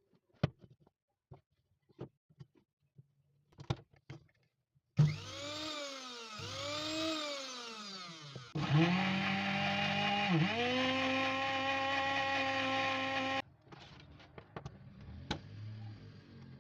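Electric blender motor: a few handling clicks, then the motor whines up and down in speed twice, runs at a steady high whine with one brief dip, and cuts off suddenly, followed by faint clicks.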